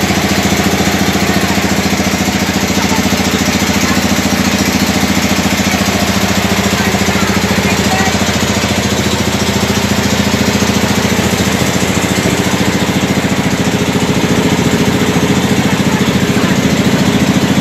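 A passenger ferry's engine running steadily at cruising speed, a low, even drone with a constant hiss over it, heard on board.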